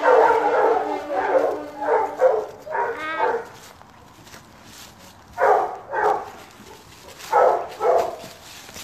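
Hunting hounds baying, a loud overlapping cry at first, then two pairs of short bays about midway and two more near the end. A hunting horn's held note fades out beneath them about two seconds in.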